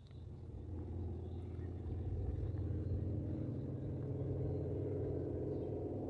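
A nearby engine running steadily: a low rumble that builds over the first couple of seconds and then holds.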